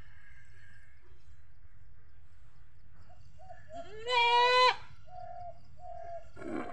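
A doe goat in labour bleats once, a single loud call lasting a little over half a second about four seconds in.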